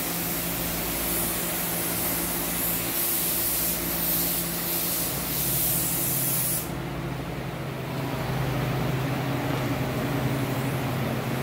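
Gravity-feed compressed-air paint spray gun hissing in passes as it sprays paint, then cutting off abruptly about two-thirds of the way through as the trigger is released. A steady low hum runs underneath and grows louder near the end.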